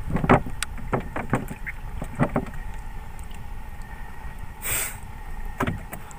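Knocks and rattles of speared fish being handled and threaded onto a wire stringer on a small boat: a cluster of short knocks in the first couple of seconds, a brief rush of noise about three-quarters of the way in, and one more knock near the end.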